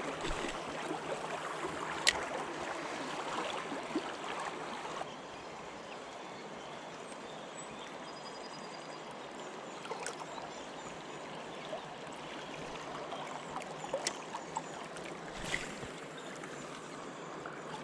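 River current flowing and rippling around a wading angler's legs: a steady watery rush, a little softer after about five seconds, with a few faint sharp clicks.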